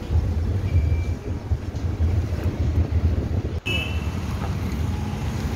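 Steady low rumble of a moving car, road and engine noise heard from inside the cabin, with some wind noise. About three and a half seconds in the sound drops out for a moment, then the same rumble carries on.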